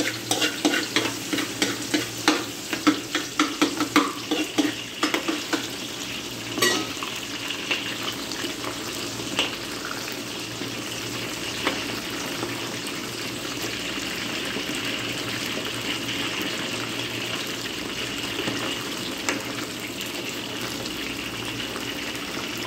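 Battered chicken strips deep-frying in oil in a wok, a steady sizzle. During the first five seconds a metal slotted spoon stirring them clacks quickly against the wok, with one more sharp click about seven seconds in.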